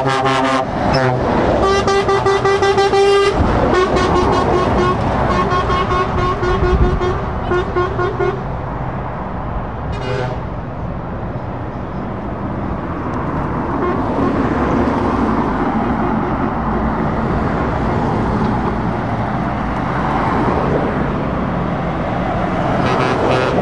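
Lorry air horns sounding in repeated pulsing blasts for the first eight seconds, a short blast about ten seconds in and another near the end, over the engine and tyre noise of heavy trucks driving past.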